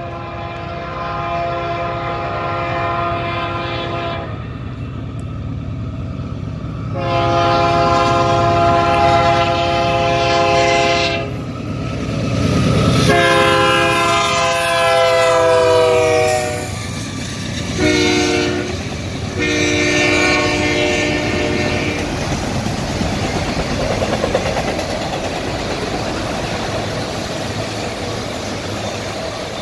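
Horn of Union Pacific GE C44AC diesel locomotive 6243 sounding a series of long blasts, one short blast and a final long blast, as it nears a road grade crossing. The locomotive's engine rumbles underneath. The horn's pitch falls during the third blast as the locomotive passes, and after the last blast the autorack cars roll by with steady rail noise.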